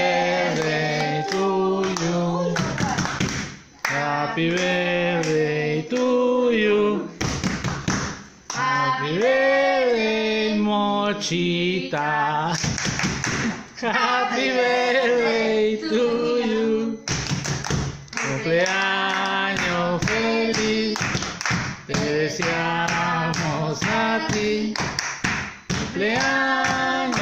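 A small group of women singing a birthday song together, unaccompanied, with hand clapping that gets busier toward the end.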